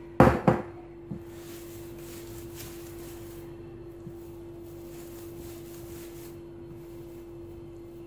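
Two sharp knocks about a quarter second apart, then a steady low hum with faint soft sounds of hands kneading ground meat and spice together.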